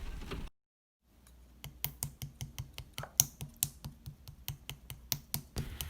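A quick, fairly regular run of short clicks, about four or five a second, after a brief total dropout about half a second in.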